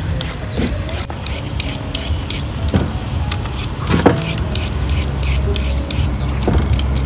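Quick, repeated short strokes of food preparation, about three a second, beginning a second or so in, over a low steady hum.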